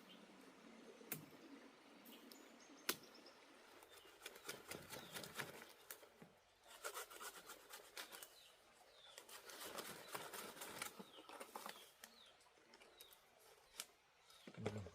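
Faint scattered clicks, knocks and rustling, denser in stretches, with a few short high chirps.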